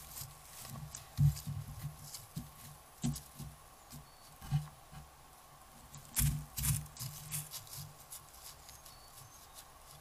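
White-tailed deer stepping through dry leaf litter: irregular crunching and rustling footsteps, loudest about a second in and again around six seconds in, fading as the deer moves away.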